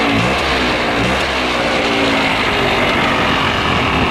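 Polaris Scrambler 400's two-stroke single-cylinder engine revved in place, the throttle blipped so the pitch rises and falls several times.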